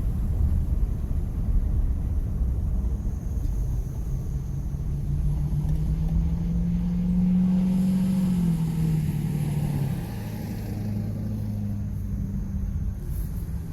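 2001 Ford F-150 pickup's engine running with a heavy low rumble; its pitch climbs for a few seconds, then drops in two steps near the middle and holds steady. The truck is sold with a misfire.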